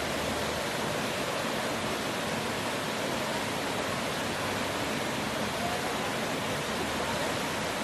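Steady rush of river water pouring down a natural rock waterslide.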